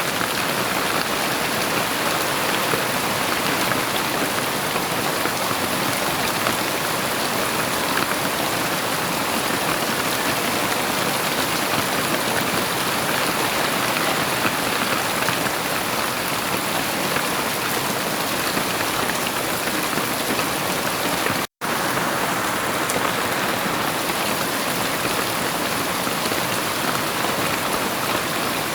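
Heavy rain falling steadily, a dense, even patter. The sound cuts out for a split second about three quarters of the way through, then carries on unchanged.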